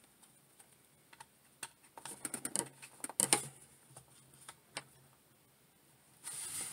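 Light plastic clicks and taps as a DC Multiverse Superman action figure is handled and its feet are set down on a wooden desk, in scattered bunches, with a brief rustle near the end.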